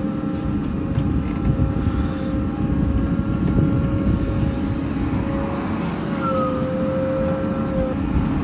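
Heavy diesel vehicle engine running steadily, a dense low rumble with a steady whine over it that dips slightly in pitch about six seconds in.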